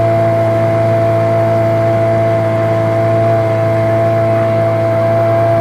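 Motorboat engine running at a constant speed, a steady drone that does not change in pitch or level.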